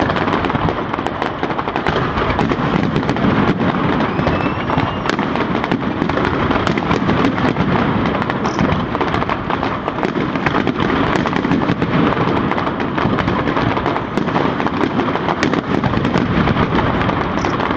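Fireworks display: a dense, continuous barrage of bangs and crackles with no pause.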